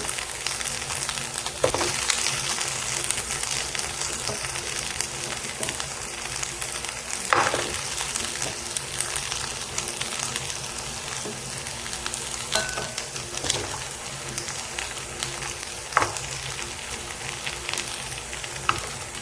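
Fried fish pieces sizzling in a pan of sautéed onion and sauce while being stirred, with a few short knocks of the spoon against the pan.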